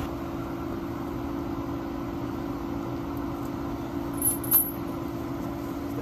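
Steady hum of the Ram ProMaster camper van's engine idling, with two short metallic clinks about four seconds in from snow chain links being fitted on the front tire.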